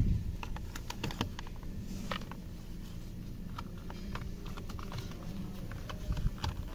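Scattered light plastic clicks and taps from gloved hands handling a car's steering-column clock spring (spiral cable), with a soft thump at the start.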